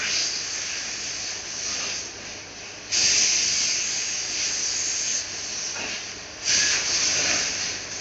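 Laser cutting machine cutting sheet metal: a loud hiss from the gas jet at the cutting head. It jumps up sharply about three seconds in and again near the end, over a steady low hum.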